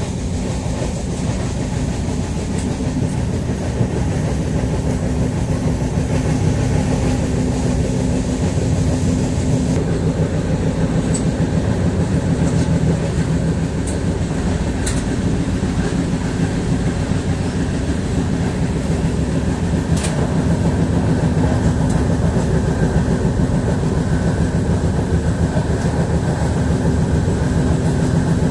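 Steady, loud rumbling of a vehicle in motion, with a few faint clicks now and then.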